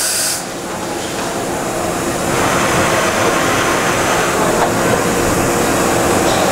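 Okuma MC-50H horizontal machining center running a dry cycle. A brief hiss cuts off in the first half-second, then a steady mechanical running noise builds from about two seconds in as the pallet table moves up in front of the spindle.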